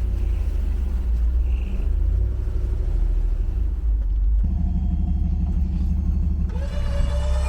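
Vehicle engine rumbling steadily, as an electric winch on a Toyota FJ40 Land Cruiser is put to work. About four and a half seconds in the low sound shifts, and near the end a rising whine with several tones comes in as the winch motor starts to pull.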